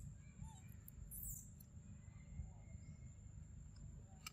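Near silence: faint outdoor background with a steady low rumble and a single sharp click near the end.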